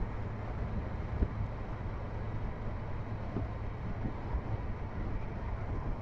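A car driving, with a steady low rumble of road and engine noise. There is a single thump a little over a second in.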